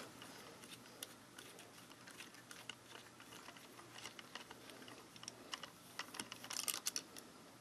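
Faint small clicks and scrapes of a screwdriver turning a tiny screw out of an HO model locomotive's circuit board, with a quick run of clicks near the end.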